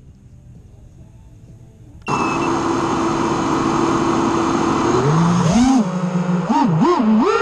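Small multirotor drone's electric motors and propellers spinning up suddenly about two seconds in to a steady whine. From about five seconds in the pitch rises and dips several times with the throttle as the drone lifts off.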